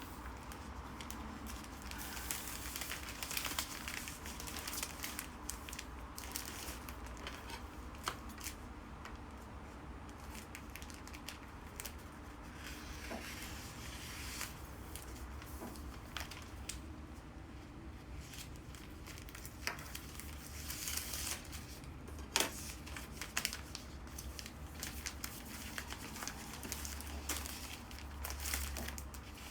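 Bouquet wrapping material crinkling as it is handled and folded, with scattered clicks and occasional tearing or cutting sounds. A steady low hum runs underneath.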